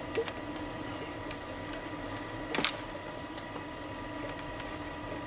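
Handling noise from gloved hands squeezing a truck's coolant hoses: a light click just after the start and a sharper knock about two and a half seconds in. Underneath is a steady hum with a faint high whine.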